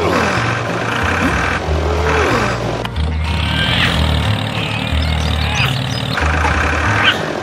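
Toy tractor engine sound effect running under background music with a pulsing bass line, with a few short sliding squeals on top.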